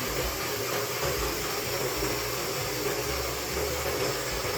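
Electric countertop blender running steadily, blending herb leaves with lime juice and water.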